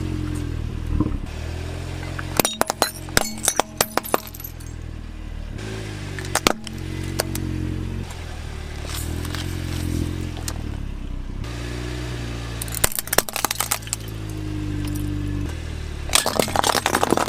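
Small toy cars clattering and clinking against each other and the toy excavator in several short bursts, over a steady low droning background that shifts pitch in steps.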